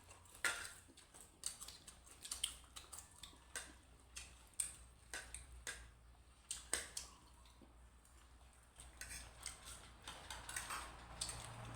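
Eating utensils clinking against a plate or bowl in a string of irregular sharp clicks, over a faint low steady hum.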